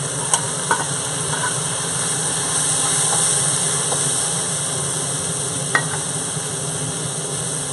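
Chicken sizzling steadily as it is stir-fried in a hot wok, the cooked pieces tossed back in and stirred. A few sharp clinks of a metal spatula and ladle against the wok, three in the first second and a half and one a little before the end.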